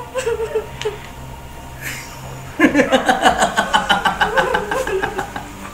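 A man laughing mockingly in a rapid run of ha-ha pulses, about five a second, for about three seconds. Before it comes a short wavering, whimpering voice.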